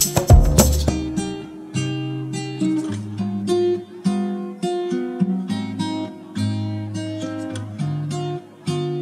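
Background music with acoustic guitar strumming and picked notes; a loud percussive passage stops about a second in.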